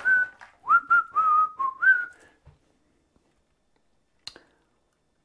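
A person whistling a short tune of several separate notes, some sliding up into pitch, stopping about two seconds in. A single sharp click comes near the end.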